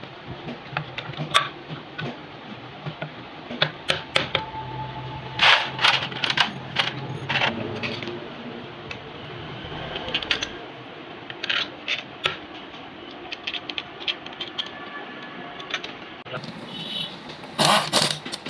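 Metal hand tools and small engine parts clinking and tapping in irregular sharp clicks while a motorcycle engine is worked on by hand.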